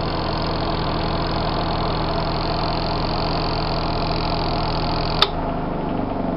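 Ultra-compact twin-tub washing machine's motor running with a steady hum, then a sharp click a little over five seconds in, after which the hum drops and fades as the motor is switched off and winds down.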